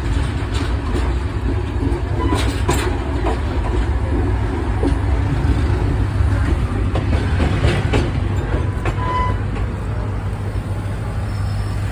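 Intercity express train running on the rails: a steady low rumble with a few sharp clicks scattered through it.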